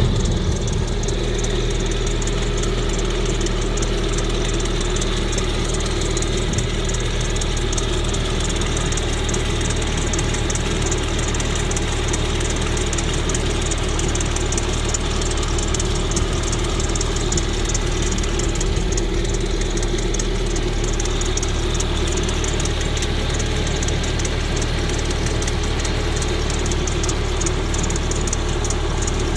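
Car engine idling steadily with a fast, regular knock running through it, the knock that the owner is recording.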